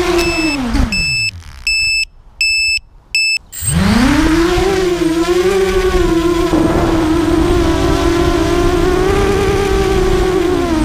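ZMR250 racing quadcopter's brushless motors and propellers whining, winding down to a stop about a second in, then spinning back up about 3.5 s in and running steady with small throttle wobbles. A high beep repeats about twice a second through the first few seconds.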